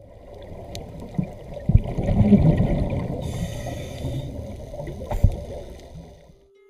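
Muffled underwater sound of a scuba dive heard through a camera's waterproof housing: a low rumbling water noise with two sharp knocks, and about three seconds in a second-long hiss of bubbles from a diver's regulator.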